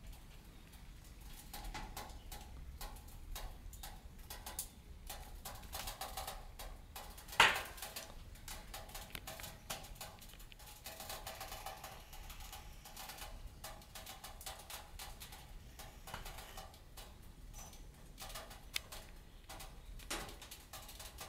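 Wood fire crackling inside a steel wood stove: irregular small clicks and pops, with one loud sharp crack about seven seconds in.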